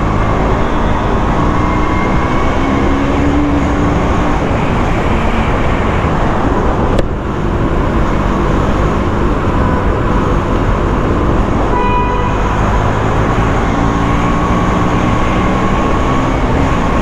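KTM motorcycle engine and wind noise heard from the rider's seat while riding through a road tunnel, the engine note rising twice as it accelerates. A sharp click about seven seconds in and a short beep about twelve seconds in.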